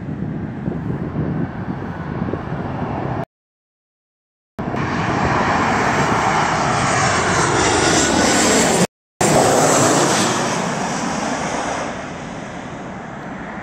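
Wind buffeting the microphone, then a twin-engine jet airliner passing low overhead on final approach: loud jet engine noise with sliding, sweeping tones that fades near the end. The sound cuts out completely twice, for about a second near the start and briefly in the middle.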